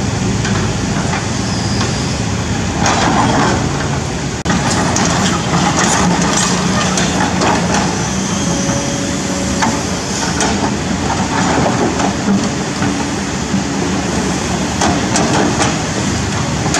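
Kobelco SK200 hydraulic excavator's diesel engine running steadily under working load, with stones knocking and clattering under the bucket at intervals and river water rushing.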